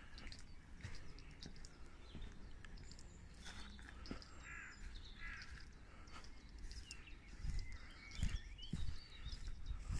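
Several birds chirping and calling in the surrounding trees, with a few soft footstep thuds on paving and grass in the last few seconds.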